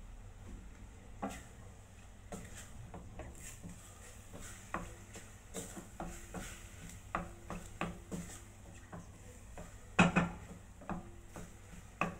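A wooden spatula stirs minced pork in a stainless-steel pot and scrapes food from a bowl into it. It makes irregular scrapes and knocks of wood on metal, and the loudest knock comes about ten seconds in.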